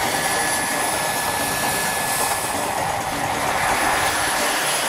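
RC helicopter powered by a JetCat PHT-3 kerosene turbine, in flight: a steady turbine whine over the rushing noise of the spinning rotors.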